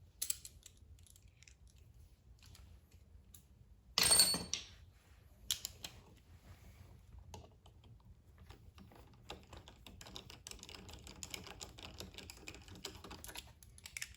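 Hand tools on small metal parts: light clicks, a sharp metallic clink with a brief ring about four seconds in, then several seconds of rapid ratchet clicking near the end as 10mm valve cover bolts are run down until they bottom out.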